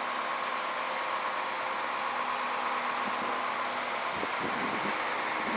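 Engine of a crane running steadily as it hoists a load, a constant hum with a faint steady whine.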